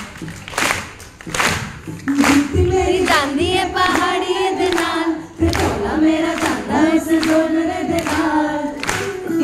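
A woman singing into a microphone, her voice entering about two seconds in with held, wavering notes, while the audience claps a steady beat in time.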